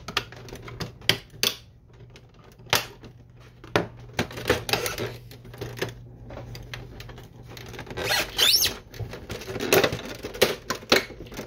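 Plastic housing of a Canon Pixma MG6820 printer being pried apart with a flathead screwdriver: a string of sharp plastic clicks and snaps as the clips give, with stretches of plastic scraping and rubbing, and a brief squeak about eight seconds in.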